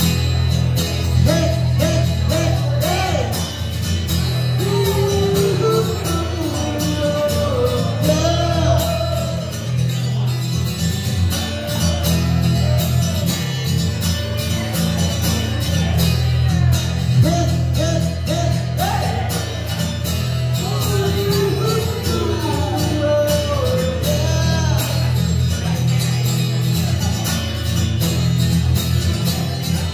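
Live amplified music: a woman sings a melody into a microphone over acoustic guitar, with a strong bass line underneath.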